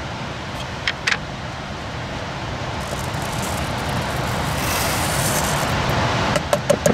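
Dry rice being tipped from a plastic tub into the inner pot of a small 12-volt car rice cooker: a couple of light knocks about a second in and a quick run of clicks near the end. Under it is a steady rushing background that slowly swells.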